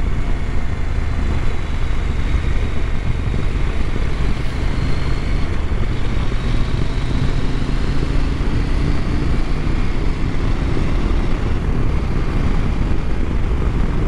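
Husqvarna Norden 901's parallel-twin engine running steadily at road speed, under a heavy, even rush of wind on the microphone.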